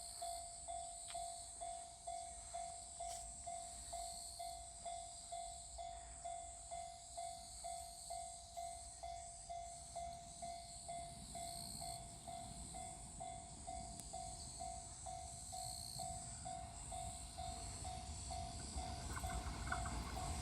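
Japanese level-crossing warning bell ringing in an even electronic clang, about two strikes a second. From about halfway the low rumble of the approaching Shinano Railway 115-series train grows underneath it and swells near the end.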